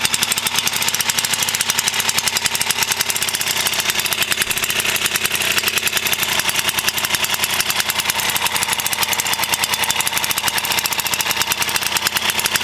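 Vintage ATCO lawnmower's single-cylinder air-cooled Villiers engine running steadily at a fast, even beat, sounding healthy and regular.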